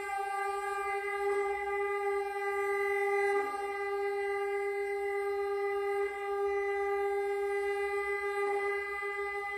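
Hardanger fiddle in klokkestille tuning (A-D-F#-E, pitched up to B) holding one long bowed note that stays steady in pitch, with the bow renewed a few times along the way.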